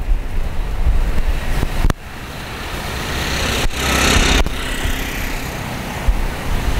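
Rolls-Royce Trent 1000 jet engines of a Boeing 787-9 taxiing at low thrust, a steady rush, swelling briefly louder about four seconds in. Wind buffets the microphone with a low rumble and a couple of thumps.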